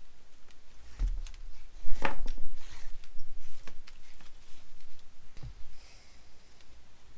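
Hand-stitching a hippo-leather wallet: thread drawn rasping through the punched holes, with a knock about a second in and a dull thump later on the work table.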